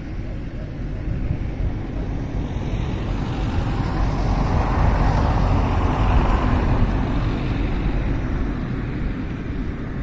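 A road vehicle passing by, its noise swelling to a peak about halfway through and then fading, over a steady low rumble of wind on the microphone.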